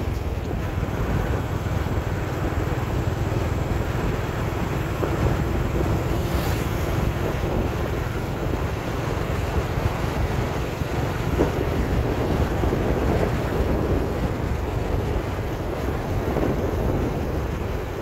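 Steady wind buffeting the microphone of a camera moving along a road, a continuous rumbling rush heaviest in the low end.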